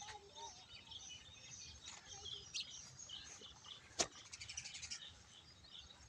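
Small birds chirping and twittering, with a single sharp click about four seconds in followed by a quick run of ticks lasting about a second.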